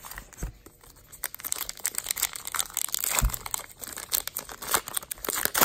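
Wrapper of a trading card pack crinkling and tearing as it is ripped open by hand, a dense run of crackles, with two dull thumps near the start and about halfway.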